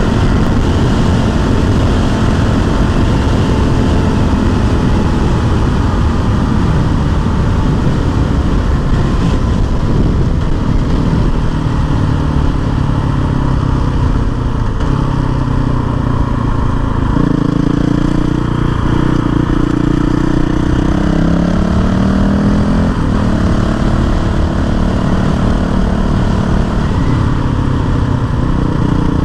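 Honda CRF450L's 450 cc single-cylinder four-stroke engine running under way on a ride. Its pitch rises and falls with throttle and gear changes, with several distinct shifts in the second half, over a steady rush of riding noise.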